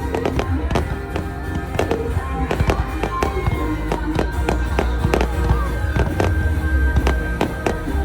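Fireworks going off in rapid, irregular succession, with many sharp bangs and crackles, over music with a heavy bass.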